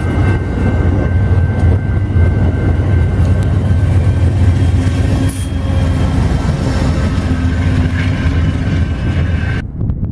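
Amtrak Downeaster passenger train with its GE Genesis diesel locomotive passing close by: a loud, steady rumble of wheels on rail and engine, with a thin, high steady tone over it in the first few seconds. Near the end the rumble cuts off abruptly to a much quieter, wind-like hush.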